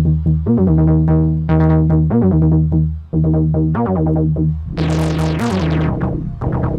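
PPG 1002 analog synthesizer playing a run of short plucky notes over a held low drone, each note's brightness falling away quickly. About five seconds in, the sound turns brighter and buzzier, with fast downward sweeps.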